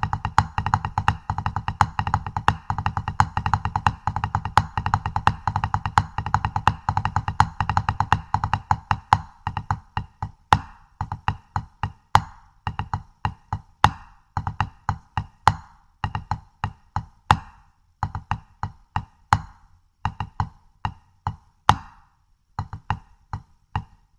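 Drumsticks playing the single ratamacue rudiment on a ProLogix Red Storm rubber practice pad. A fast, dense run of strokes slows about nine seconds in into separate groups of strokes with short pauses between them.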